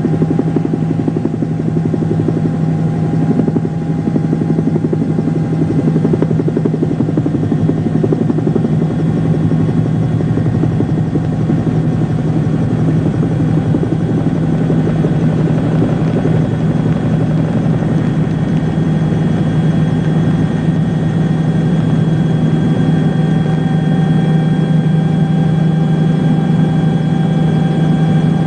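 Steady, loud mechanical drone from an engine or rotor, with a fast pulsing beat and a few faint steady tones above it, unchanged throughout.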